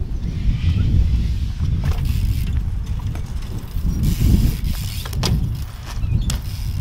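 Heavy, irregular low rumble of wind buffeting the microphone, with a few sharp clicks, about two seconds in, five seconds in and again shortly after.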